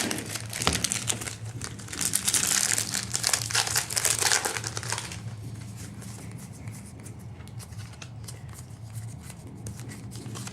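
Trading-card booster pack wrappers crinkling and tearing as packs are opened, busiest in the first five seconds. After that it is quieter, with scattered light clicks and rustles from the cards being handled.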